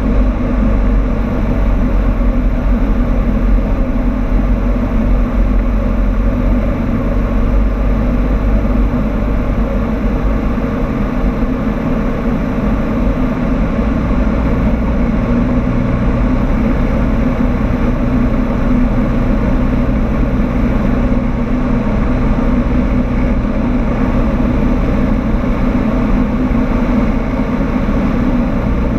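Cessna 152's four-cylinder piston engine and propeller droning steadily, heard from inside the cockpit in flight. The tone shifts slightly about halfway through.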